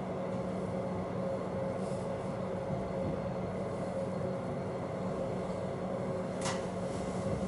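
Passenger train running along the track, heard from inside the carriage: a steady rumble with a steady hum, and a single short sharp click about six and a half seconds in.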